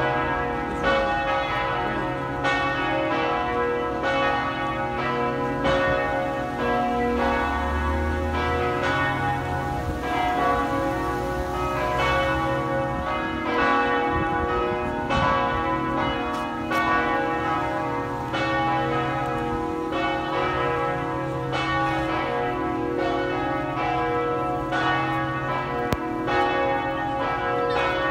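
The four Cornille-Havard bells of the Notre-Dame de Québec basilica, tuned to B2, C♯3, D♯3 and D♯4, ringing together in a continuous peal of overlapping strokes, each strike left ringing under the next. They are ringing the call to the 5 pm mass, as the uploader supposes.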